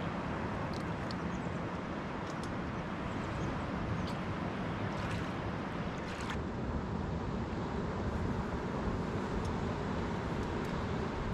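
Steady rumble of ocean surf breaking on the beach, with a few faint high ticks scattered through it.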